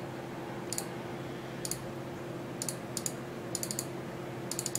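Computer mouse clicks, single and in quick double clicks, about once a second, over a faint steady hum.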